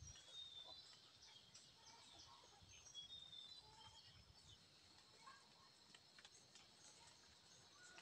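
Faint outdoor ambience with scattered short, high bird chirps and whistles, and a few faint clicks.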